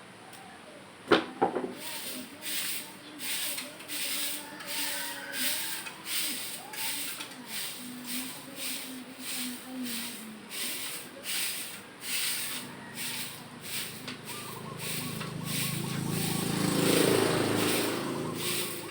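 Rhythmic sweeping strokes scraping over the ground, about two a second, after a single sharp knock about a second in. A low rumble swells up near the end.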